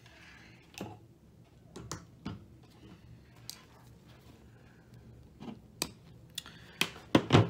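Scattered light clicks and ticks of wires and plastic connectors being handled. Near the end come a few louder sharp clicks as wire cutters snip a red wire out of a Ford 5.0 EFI wiring harness.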